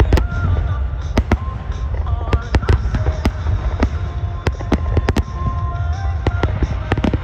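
Aerial fireworks shells bursting in quick succession, many sharp bangs and crackles over a steady low rumble.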